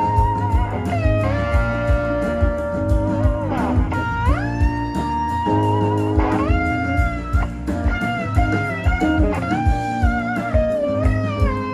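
Live band music: an electric guitar lead plays long notes that glide up into held tones, over a steady bass and drum beat.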